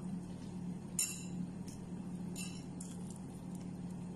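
A few light clinks of tableware, three short strikes about a second apart with the loudest about a second in, over a steady low hum.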